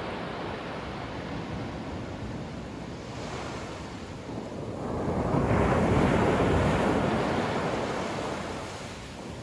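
Ocean waves breaking and washing up the beach. One wave swells louder a little past halfway, then fades away.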